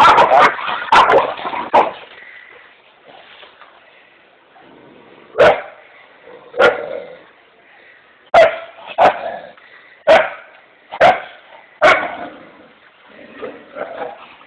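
Dog barking: a rapid flurry of barks at the start, then single barks about a second apart, and a few softer barks near the end.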